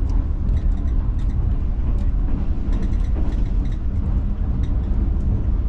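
Steady low rumble of the Green Line Express passenger train running, heard inside the carriage, with a few faint clicks from a plastic food tub being handled.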